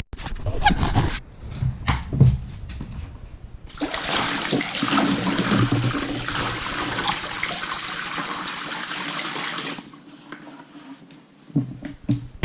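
A few knocks, then water rushing loudly for about six seconds before it stops.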